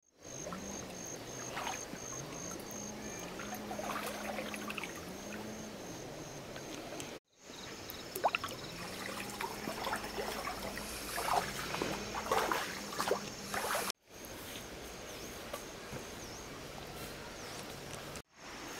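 Water trickling and splashing in a few short clips cut together, each ending in a brief dropout. Under it runs a low hum that rises and falls in pitch, with a high, evenly pulsing tone above.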